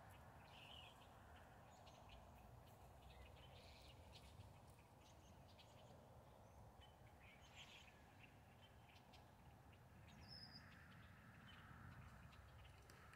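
Near silence: faint outdoor background rumble with a few brief, faint bird chirps scattered through.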